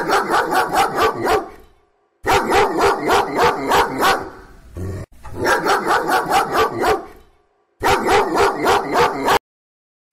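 A dog barking rapidly in four runs of about six to eight barks each, roughly four barks a second with short pauses between runs. The barking cuts off abruptly near the end.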